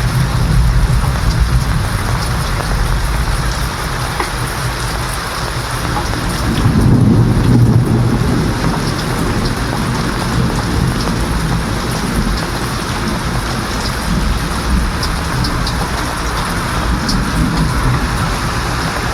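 Steady heavy rain falling, with a low roll of thunder that swells about seven seconds in and dies away.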